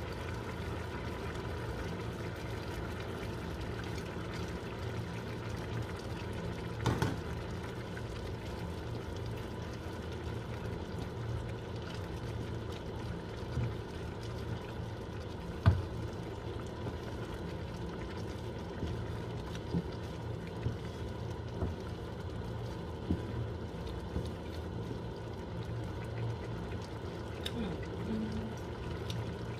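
Cream sauce with farfalle simmering and bubbling steadily in a frying pan, with a few sharp knocks of a wooden spoon against the pan, the loudest about halfway through.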